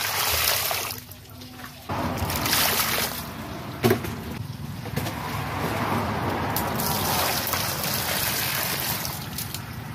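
A stream of water pouring and splashing onto eels in a plastic basin. It pauses briefly about a second in, then runs steadily, with a single knock about four seconds in.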